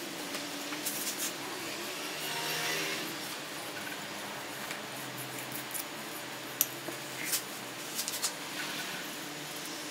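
Butcher knife slicing the skin away from a raw pig's head: soft cutting and handling noise with a few short sharp clicks, the loudest a little past the middle.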